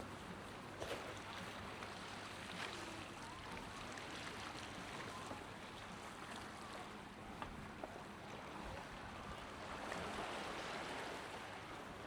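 Steady seafront ambience: an even wash of noise from the sea and the breeze, with a few faint ticks.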